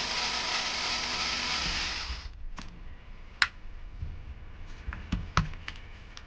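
A steady hiss for about two seconds that cuts off, then scattered sharp clicks and taps of small screws, tools and plastic parts being handled.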